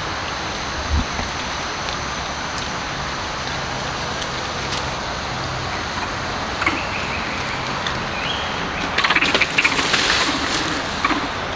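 Steady outdoor background hiss with a few short high chirps, and a brief burst of rapid clicking about nine seconds in.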